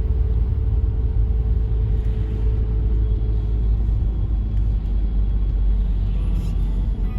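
A car's low, steady road and engine rumble from inside the moving car.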